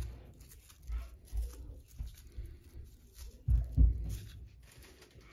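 Dull thumps and knocks from handling the vacuum's plastic brush roll, with light rustling between. The knocks are uneven: a strong one right at the start and the loudest pair a little past halfway.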